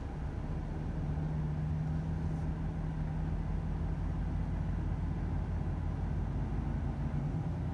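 Volvo FH 500 truck's 13-litre inline-six diesel running with a steady low drone and a constant hum, which firms up about a second in.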